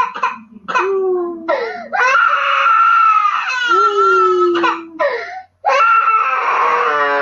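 Small child crying hard in long, loud wails with short catches of breath between them.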